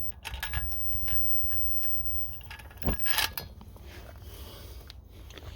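Scattered small clicks and knocks of a Coleman white-gas lantern being handled and readied for lighting, with a louder scrape-and-knock about three seconds in, over a low steady rumble.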